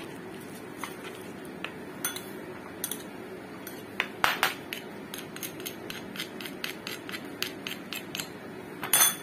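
Stone pestle and metal spoon knocking and scraping in a clay mortar while mixing peanut sambal: irregular sharp taps, with a louder cluster about four seconds in and again near the end, over a steady low hum.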